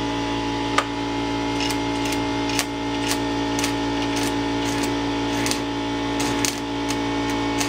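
Small 110-volt stick welder trying to strike an arc: irregular sharp clicks and crackles as the electrode is tapped and scratched on a rusty exhaust pipe, over a steady electrical hum. The arc keeps failing to hold, the sign of an underpowered welder.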